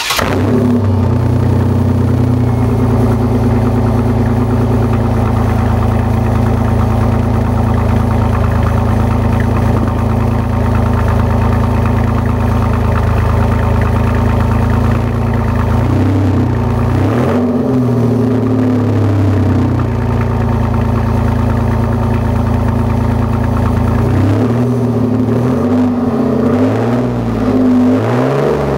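Chevrolet Camaro engine idling steadily, then revved several times from about halfway through, its pitch rising and falling with each blip of the throttle.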